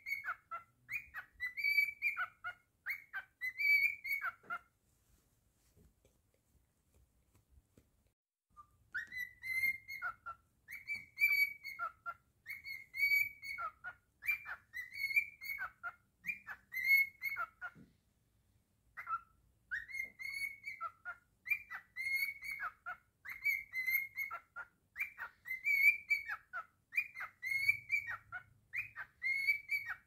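A cockatiel whistles a tune over and over in short, clear notes, many sliding up and then dropping. The song breaks off for about four seconds starting some four seconds in, and pauses again briefly just past the middle before carrying on.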